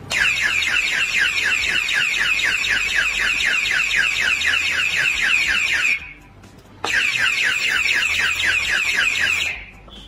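Electronic alarm padlock's built-in siren sounding a super loud, fast warble, set off by its motion sensor when the lock is hit and shaken. It cuts off about six seconds in and starts again about a second later.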